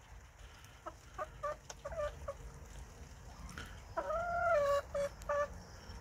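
Domestic hens clucking: several short clucks in the first couple of seconds, a longer drawn-out call about four seconds in, then two more short clucks.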